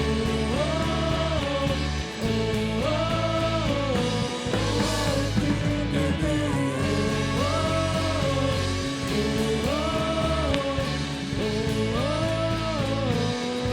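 Live church worship band playing: a melodic phrase repeats about every two seconds over a steady bass line.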